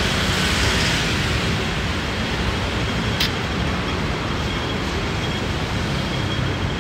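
Steady city street traffic noise at a busy pedestrian crossing, with one short sharp click about three seconds in.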